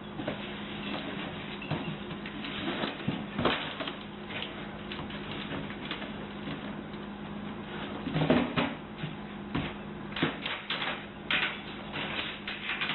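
A pet-door flap knocking and clacking as a dog pushes through it carrying a box, the box bumping against the flap opening. There are several sharp knocks, one about three and a half seconds in, a louder one past the middle and a quick cluster near the end, over a steady low hum.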